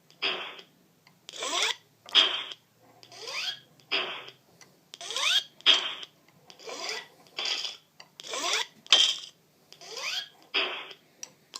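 Armoured-suit walking sound effect played as a series of steps: each step is a rising mechanical whir followed by a short hiss, about one step every one and a half seconds.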